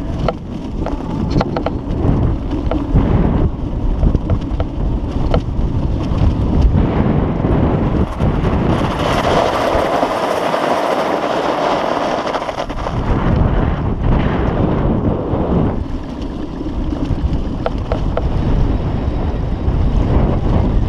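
Strong wind buffeting the microphone with a heavy, uneven rumble. For a few seconds in the middle the rumble drops away and a steadier hiss takes over before the buffeting returns.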